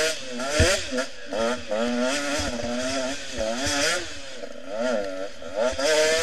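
Enduro motorcycle engine, heard from a camera mounted on the bike, revving up and down over and over as the throttle is opened and closed. A few short thumps come from the bike going over bumps.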